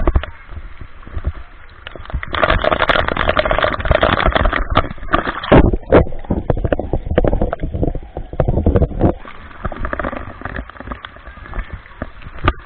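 Water splashing and pouring onto a waterproof action camera under a pool's mushroom fountain, loudest in the first half, with a few sharp knocks near the middle. About six seconds in the sound turns dull and muffled as the camera goes under the water, then the splashing eases.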